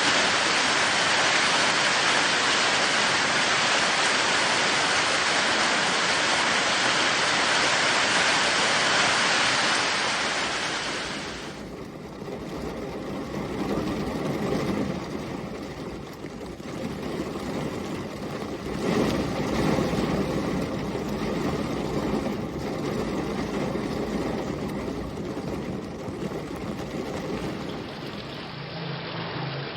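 Heavy rain falling, a dense, steady hiss, cuts off about eleven seconds in to a stream flowing, quieter and uneven, swelling and ebbing.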